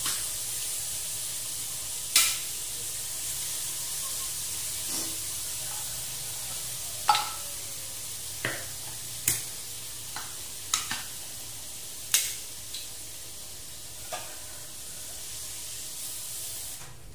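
Sardines and eggplant frying in a wok with a steady sizzling hiss. Sharp clinks and knocks of a spatula and utensils against the pan come every second or two as the food is stirred.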